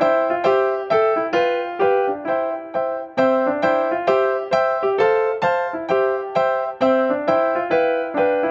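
Background piano music: a steady, even run of struck notes, each ringing and fading, about two to three a second.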